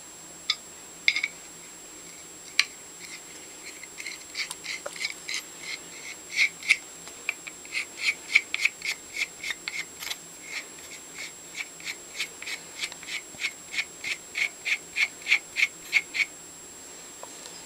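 Small metal parts of a Stanley No. 113 compass plane clicking as its mechanism is worked by hand: a few scattered clicks, then a steady run of short clicks about three a second that stops a second or so before the end.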